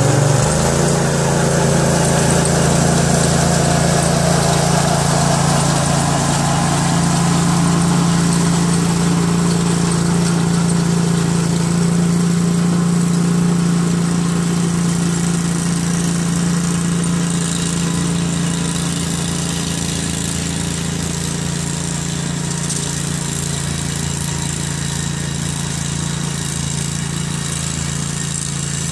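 Engine of a Rapid Spezial two-wheel tractor running steadily while it pulls a rotary hay tedder. It grows gradually fainter as the machine moves away.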